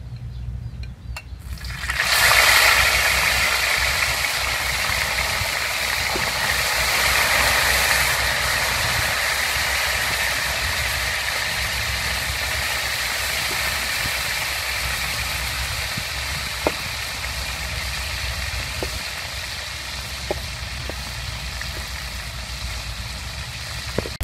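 Small fish frying in hot oil in a wok: a loud sizzle starts suddenly about two seconds in as the fish go into the oil, then runs on as a steady hiss that slowly eases. A few light clicks of a metal spatula against the wok.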